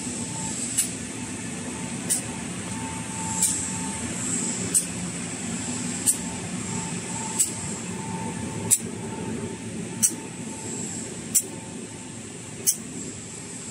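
Automatic colour-glue toilet paper rewinder running: a steady mechanical hum and hiss, with a sharp click repeating evenly about every one and a third seconds.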